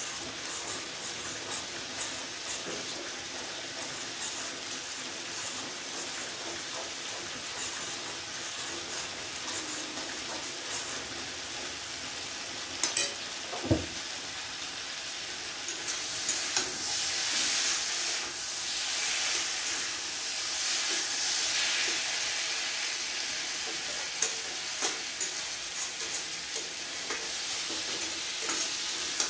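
Vegetable curry frying and sizzling in oil in a pan on a gas stove while a spatula stirs it, with small scrapes and taps. A sharp knock comes about halfway through, and the sizzle grows louder for several seconds after it.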